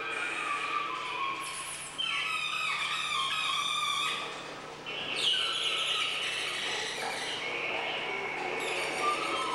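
Electronic feedback tones from a piezo-disc balloon instrument, resonating in mylar balloons. Several high squealing, chirping tones glide and step in pitch as the player's body, acting as a variable resistor, changes the circuit. New, louder clusters of falling tones come in about two seconds in and again just after five seconds.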